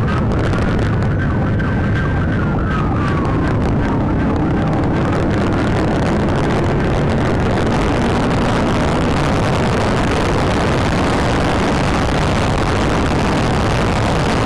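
Police patrol SUV's siren wailing, its pitch rising and falling, during the first few seconds. It is then lost under loud, steady road and engine noise from the SUV at highway speed, heard from inside the cabin.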